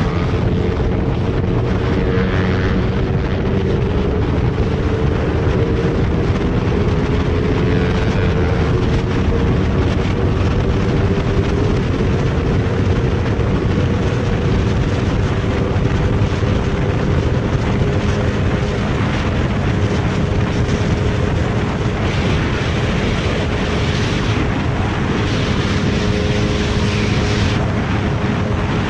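Motorcycle engine at steady cruising revs, heard from the rider's own bike, under heavy wind rush on the microphone. The engine note sags slightly in pitch over the first several seconds, then holds steady.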